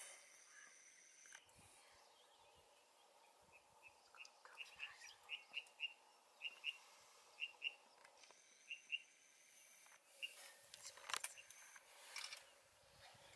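A bird calling faintly: a run of short, high chirps, many in quick pairs, over a quiet natural background, with a few soft clicks near the end.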